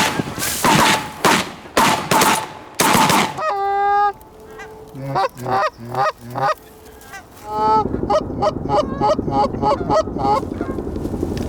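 Canada geese honking repeatedly, with a burst of quick calls at about four a second in the second half.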